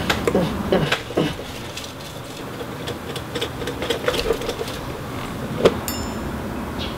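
Cardboard cereal box tipped and shaken over a bowl, with a few crumbs pattering in: the box is all but empty. Clicks and rattles are loudest in the first second or so, then come scattered light ticks and one sharp click near the end as the last piece of cereal lands on the metal spoon.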